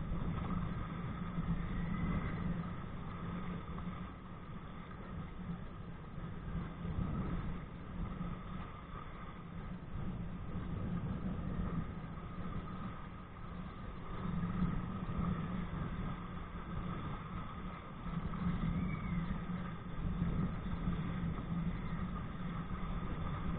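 Wind buffeting a body-worn camera's microphone on a kite-pulled kayak: a low, uneven rumble that swells and eases every few seconds, with water rushing under it.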